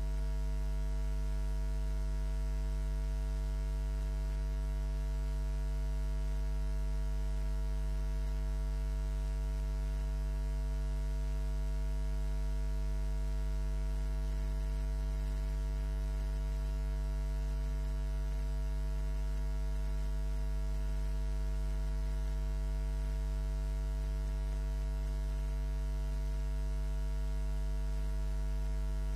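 Steady electrical mains hum: a low drone with a stack of higher overtones, unchanging, with no other sound.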